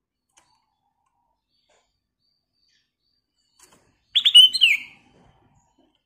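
Black-crested bulbul giving one short burst of song about four seconds in: a quick run of loud, clear notes ending in a falling note.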